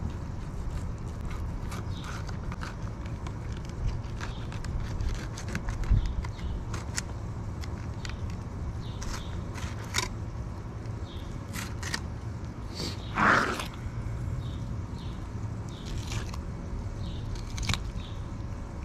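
Fillet knife cutting along a redfish's backbone: a run of small scrapes and crackles over a steady low rumble, with one louder, half-second sound about thirteen seconds in.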